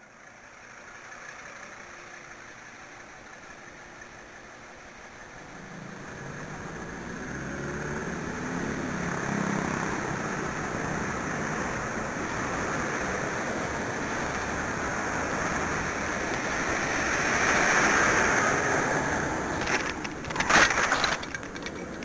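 Wind and tyre noise from a mountain bike being ridden, growing louder as it picks up speed. Near the end comes a short burst of sharp clattering impacts, the bike going down in a solo crash.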